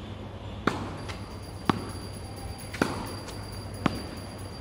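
Tennis racquets striking the ball of a tethered tennis trainer, four sharp hits about a second apart as two players alternate forehands.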